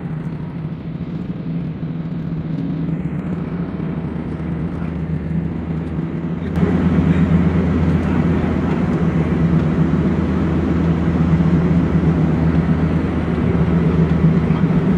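Steady low drone of a vehicle heard from inside, an even engine hum with road or cabin noise. It gets suddenly louder about six and a half seconds in.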